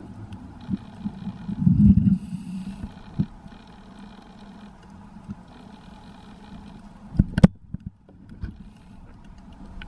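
A scuba diver breathing on a regulator, heard muffled through the underwater camera housing. A low rumble of exhaled bubbles comes about two seconds in, over a steady low hum, and a few sharp clicks follow about seven seconds in.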